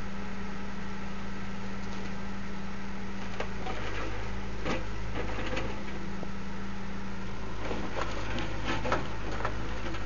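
Backhoe diesel engine running steadily, its note shifting twice as the load changes, with scattered sharp knocks and clanks that cluster near the end.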